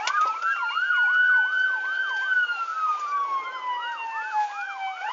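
Police car sirens during a pursuit: a slow wail that rises for about two seconds, falls and starts rising again near the end, overlaid by a fast yelp of about four sweeps a second.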